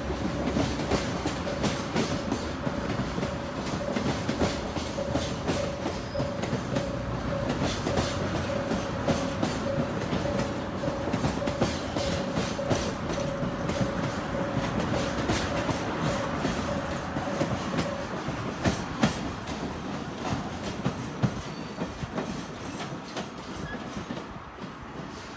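Koki container flat wagons of a freight train rolling over rail joints, wheels clicking in a fast steady clickety-clack over the rumble. A thin steady tone rides under it until about two-thirds of the way through, and the sound grows quieter near the end.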